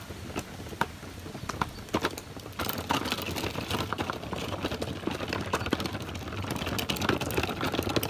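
Footsteps crunching and knocking irregularly on a stony trail. About two and a half seconds in, a steady rushing noise grows louder underneath them.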